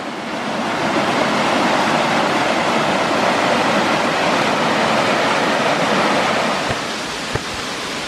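Steady rush of water from a rainforest creek tumbling over rocks, easing slightly near the end. Two faint low thumps come near the end.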